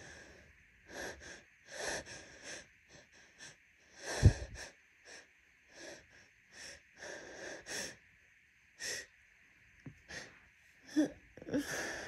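Sneezing being induced in an itching nose: quick sniffs and wheezy catching breaths, with one loud, explosive sneeze about four seconds in, then more sniffs and short gasping breaths near the end.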